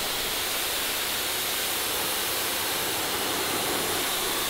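Karcher K2 electric pressure washer's jet spraying steadily against a rendered wall, a constant hiss of water spray.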